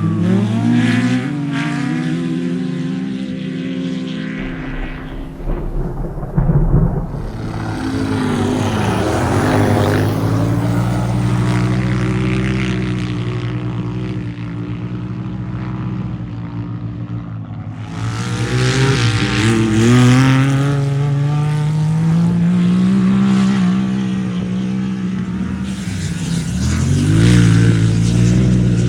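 Off-road race vehicle engines revving up and down, their pitch rising and falling as they accelerate and ease off. A brief loud clatter comes about six to seven seconds in.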